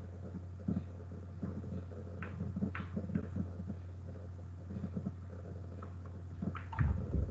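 Scattered soft clicks and knocks at a computer desk, with a cluster near the end, over a steady low hum.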